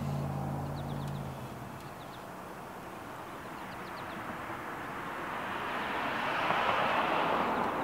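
A passing vehicle whose noise swells to a peak about six to seven seconds in and then fades, with faint bird chirps. A low steady hum cuts off about a second in.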